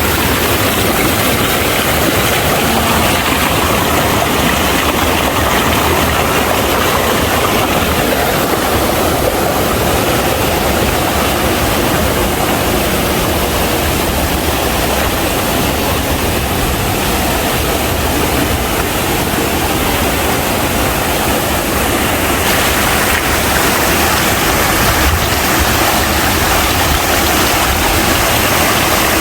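Waterfall and rushing mountain-stream water, a loud, steady roar that turns a little hissier about three-quarters of the way through.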